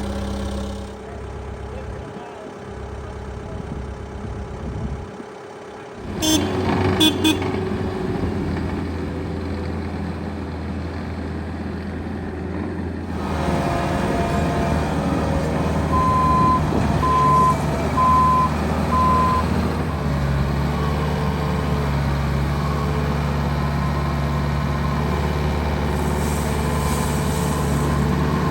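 Diesel engine of a JCB 1CXT compact tracked backhoe loader running, its note changing a few times, with a sharp clatter about a quarter of the way through. Midway an alarm gives four short, evenly spaced beeps, and one more beep sounds near the end.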